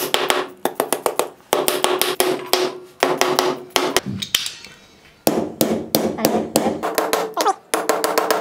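Rapid hammer blows driving wedges into the top of a new wooden handle seated in the eye of a steel cross peen hammer head, which is what locks the head on the handle. The strikes come in runs of about five or six a second, with a short pause about four seconds in.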